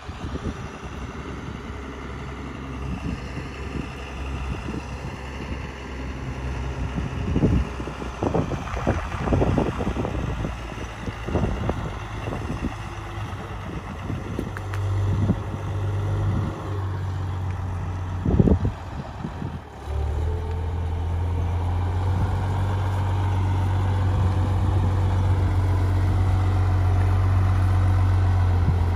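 Diesel tractor with a front loader running as it drives across the field, its low engine hum growing louder and steadier as it comes closer, from about two-thirds of the way through. A few sharp knocks and thumps come in the first half.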